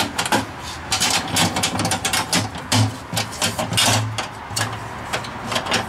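Steel U.S. Navy ammo can being handled: a string of metal clicks and knocks from the lid and its latch being worked.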